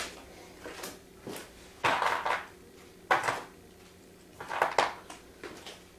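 Small furniture hardware and tools being picked up and handled on a table: about half a dozen irregular clinks and knocks spread over a few seconds.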